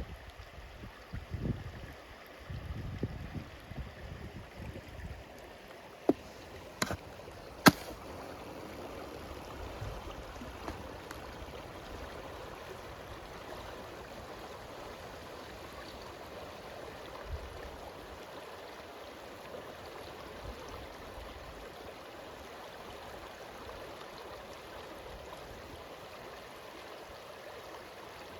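A stream running steadily. Gusts of wind rumble on the microphone during the first few seconds, and three sharp clicks come about six to eight seconds in.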